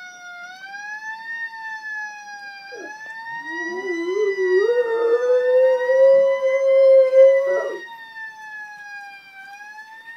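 A fire truck siren wails slowly up and down throughout, and a German Shorthaired Pointer howls along with it. The howl comes in about three seconds in, wavers, then rises to a long held note that is the loudest sound, and stops near the end.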